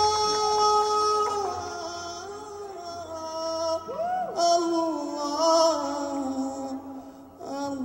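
A steady held note, which gives way about a second and a half in to a solo voice singing an ornamented melody into a microphone, its pitch sliding and wavering from note to note.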